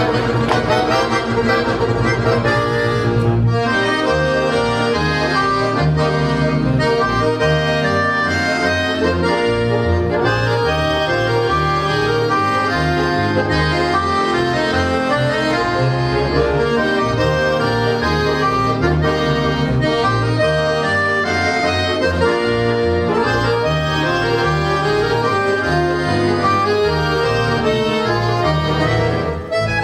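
Accordion quintet playing live: several accordions, piano and button types, in chords and melody over a bass accordion. The bass shifts from a held low chord to a line of moving notes about three and a half seconds in.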